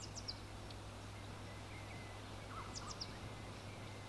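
Faint outdoor ambience with a few short, high, falling bird chirps near the start and again about three seconds in, over a steady faint low hum.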